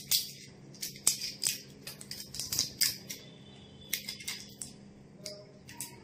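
A small saffron packet crinkling and crackling as it is worked open by hand, in irregular short crackles. A low steady hum runs underneath.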